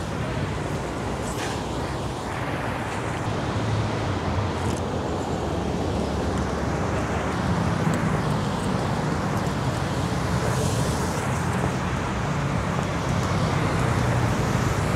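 Steady city road traffic: vehicle engines running and passing, with a low engine hum under constant tyre and street noise.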